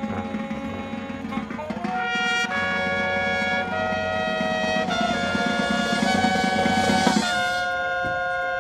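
High school marching band's brass section playing held chords that change every second or two, swelling louder about two seconds in.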